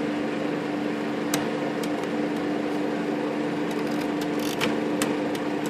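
A few sharp, isolated clicks from the Royal Futura 800 typewriter's tab and carriage mechanism as the repaired tab stops are worked, over a steady low hum that is the loudest sound throughout.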